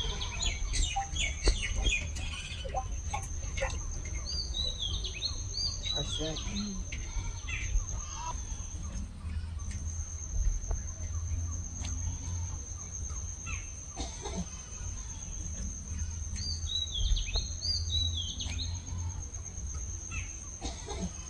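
Birds calling, a short series of three or four chirps repeated about three times, over a steady high insect trill that breaks off briefly about nine seconds in. A low rumble runs beneath.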